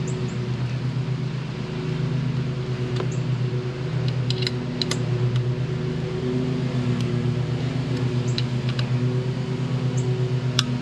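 Steady low hum of a running machine, like a fan or air-conditioning unit, with several light clicks from a strap and its metal bracket being handled and tightened.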